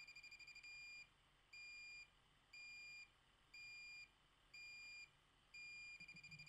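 Yellow Jacket AccuProbe IR refrigerant leak detector beeping: rapid pulsing at first, then six half-second beeps about once a second, then back to rapid pulsing near the end. It is alarming at the high-side service port, a sign that refrigerant is leaking there.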